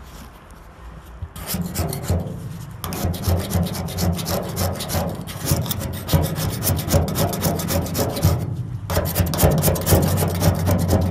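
Hand scraper rasping old sound-deadening material off the bare steel inside of a Caprice's roof in fast back-and-forth strokes. It starts about a second in and stops briefly near the end before resuming.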